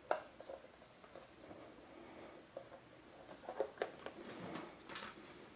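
Faint rustling and a few light clicks and taps as hands handle motor wires and plastic parts on a quadcopter frame. There is one sharp click at the start and a small cluster of clicks about three and a half to five seconds in.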